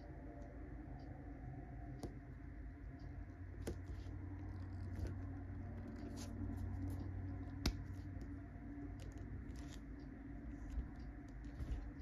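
Light handling sounds of a Parker 61 fountain pen's metal cap and barrel being worked in the fingers: scattered small clicks, the sharpest about two-thirds of the way through, over a low steady hum.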